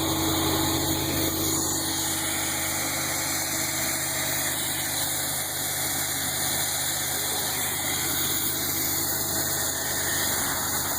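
Septic vacuum truck's engine and vacuum pump running steadily with an even, low drone.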